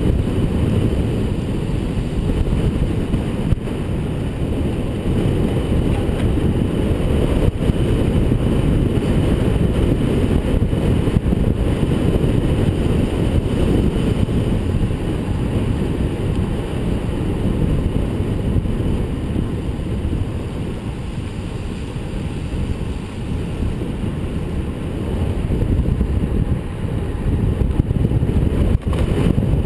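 Wind buffeting a handlebar-mounted camera's microphone as a road bike descends at speed: a steady low rumble, with a few faint knocks.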